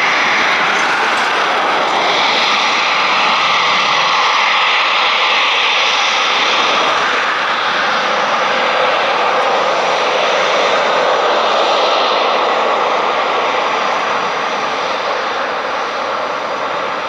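Eurofighter Typhoon's twin EJ200 jet engines running loud and steady, easing off a little near the end.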